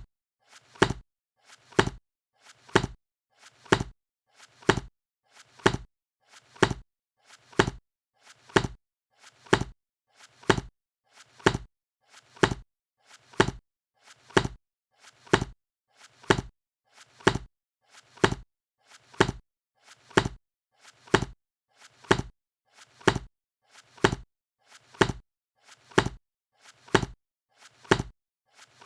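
A book being shut over and over, about once a second: each close is a short, sharp clap of the covers coming together, with a faint soft sound just before it.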